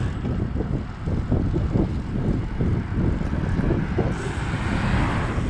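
Strong gusty wind buffeting the microphone of a camera on a moving road bicycle, a low, uneven rumble with constant surges. A rushing hiss swells about four seconds in.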